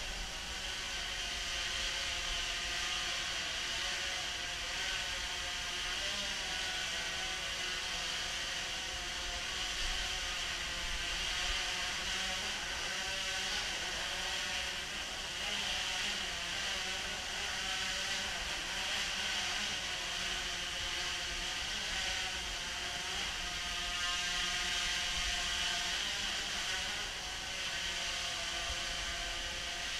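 DJI Phantom 3 Professional quadcopter's four propellers giving a steady whirring buzz as it hovers and moves about. The tone wavers slightly in pitch as the motors adjust to hold the drone in place.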